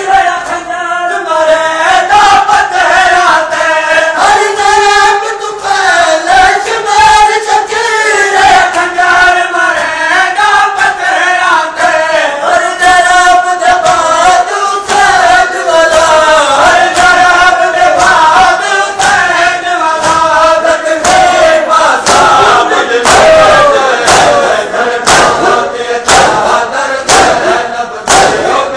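A crowd of men chanting a mourning noha together, with rhythmic matam chest-beating: open hands slapping chests in time with the chant. The slaps grow louder and more prominent in the second half.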